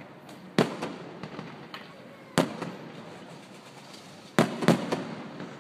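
Aerial firework shells bursting overhead: a sharp bang about half a second in, another near the middle, and two bangs close together near the end, each fading out over the following moment.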